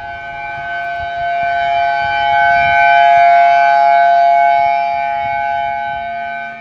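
Outdoor civil-defense siren sounding Hawaii's missile-attack warning: a loud, steady two-note tone with overtones, swelling to its loudest about halfway through and easing off toward the end.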